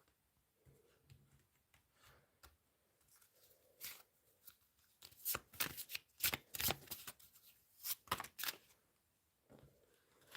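Tarot cards being shuffled by hand: crisp card flicks and riffles, sparse at first, then in dense runs through the middle seconds before easing off near the end.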